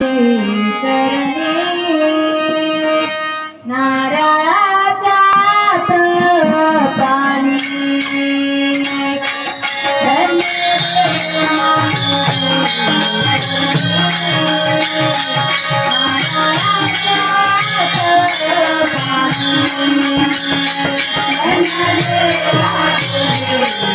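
Marathi bhajan music: a gliding melodic opening line, then small hand cymbals come in with a fast, steady beat about seven seconds in, joined by a drum pattern a few seconds later.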